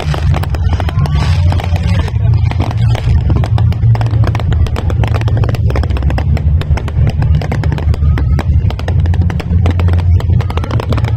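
Fireworks display: a rapid, continuous barrage of bangs and crackles over a steady low rumble.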